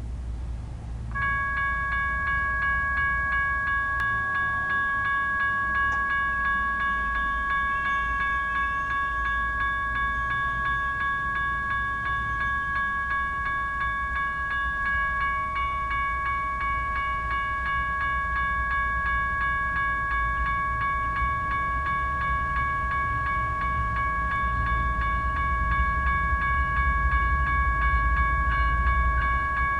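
General Signal Type 1 electronic railroad crossing bell starting up about a second in and then ringing steadily with a rapid, even strike rate: the crossing has activated for an approaching train. A steady low rumble runs underneath.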